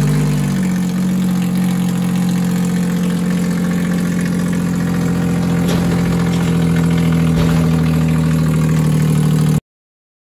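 Arctic Cat Bearcat Wide Track snowmobile's three-cylinder four-stroke engine idling steadily just after starting, its speed settling slightly lower in the first second; it runs on a replacement fuel pump with a new fine fuel filter. The sound cuts off abruptly near the end.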